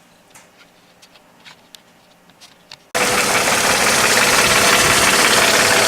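A few faint ticks, then about three seconds in a Mercedes M112 V6 is suddenly heard idling, loud and steady. Its persistent idle knock is, in the owner's opinion, the hydraulic valve lifters (he suspects cylinders 5–6), though forum mechanics call it piston-skirt slap.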